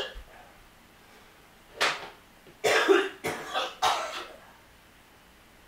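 A person coughing four times: one cough about two seconds in, then three in quick succession.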